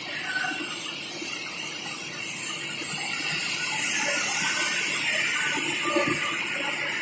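Window de-metalization machine running with a steady hissing spray of liquid, growing louder about three seconds in.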